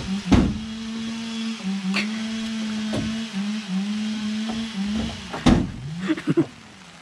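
Acacia poles knocking as they are thrown up and dropped onto a truck's load of acacia wood: several sharp wooden knocks, the loudest near the start and about five and a half seconds in. Under them runs a steady motor drone that sags briefly a few times and dies away near the end.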